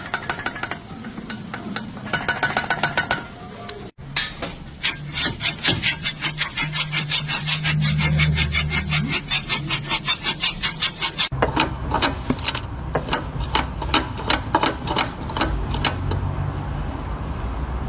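Car suspension squeaking, a fast rhythmic rubbing squeak of about four strokes a second, in short clips cut together.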